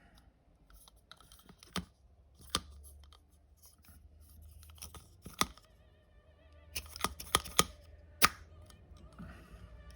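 Small airsoft gearbox parts being handled and fitted: a series of sharp clicks and taps, three of them in quick succession about seven seconds in, with faint scraping between.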